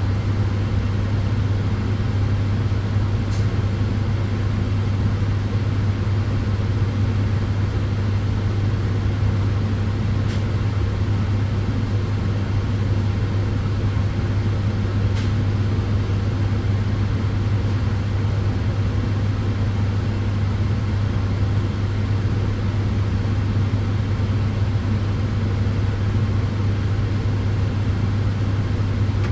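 Tanning bed (sunbed) running: a steady rush of its cooling fans over a strong low hum, with a few faint ticks.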